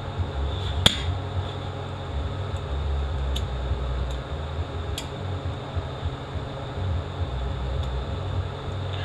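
Steady low machine hum, with a few sharp, small metallic clicks as a guide ring is worked into place by hand in a 6L80E transmission case. The loudest click comes about a second in.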